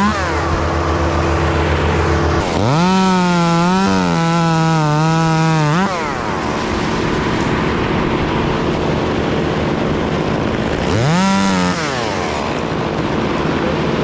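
Two-stroke chainsaw idling. About two and a half seconds in it is revved up and held for roughly three seconds with a wavering pitch, then drops back to idle. Near the end it gives one short blip of the throttle.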